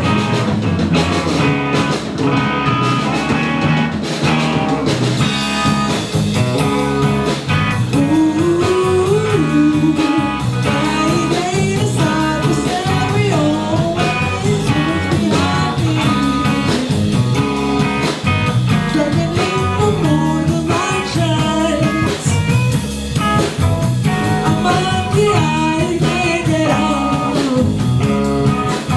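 Live rock band playing a blues-tinged instrumental passage with guitar and drums; from about eight seconds in, a melody line bends up and down over the band.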